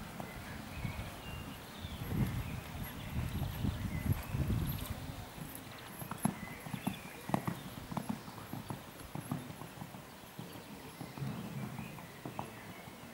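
Hoofbeats of a young Hanoverian dressage horse cantering on sand arena footing. They begin as dull thuds and turn into sharper separate footfalls about halfway through.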